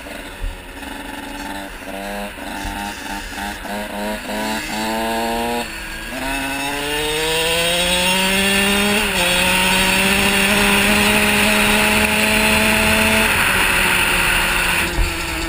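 KTM SX 85 two-stroke motocross engine, ridden hard. It revs in quick short rising bursts for the first five seconds. About six seconds in it pulls one long rising rev, dips briefly and then holds steady at speed. Near the end it falls away as the throttle eases off.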